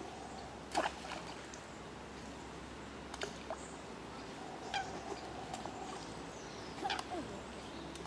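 Eurasian coots calling on a pond: four short, sharp calls a second or two apart, the first and last loudest, over a steady faint hum.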